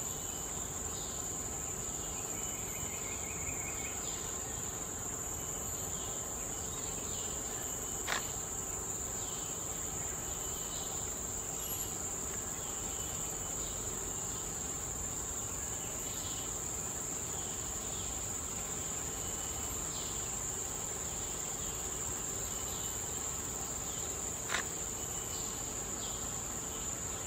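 Steady, high-pitched insect drone of forest crickets or cicadas, with faint short chirps every couple of seconds. A sharp click sounds twice, about eight seconds in and near the end.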